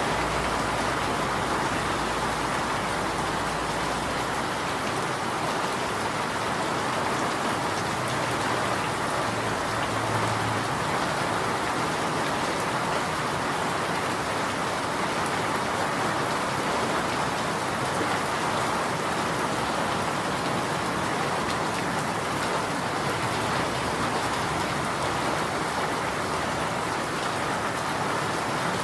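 Steady rain falling on surfaces, an even hiss of many drops with no change in strength. A faint low rumble sits under it for the first few seconds.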